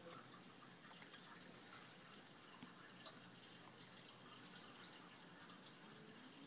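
Near silence: faint room tone with a few faint, tiny ticks.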